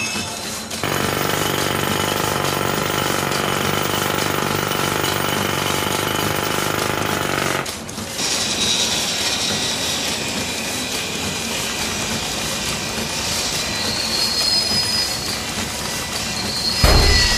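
Loud, harsh machinery noise with a screeching edge, the kind of unbearable workplace din being protested. It stops abruptly about eight seconds in and gives way to a steady hiss with high whistling tones, with a heavy thump near the end.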